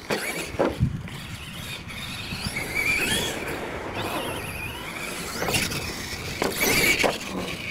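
Radio-controlled monster truck driven hard on a dirt track: its motor whines up and down in pitch as the throttle is worked, over the rush of tyres on loose dirt. Several sharp thuds, near the start and again late on, as the truck lands jumps and hits the ground.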